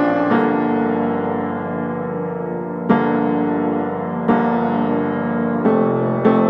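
Slow piano music: sustained chords, a new one struck every second or so and each left ringing.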